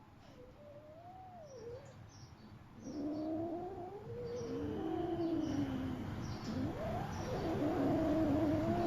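Two cats yowling at each other in a drawn-out standoff over food, their long wavering cries overlapping. The yowling is faint at first and swells louder about three seconds in.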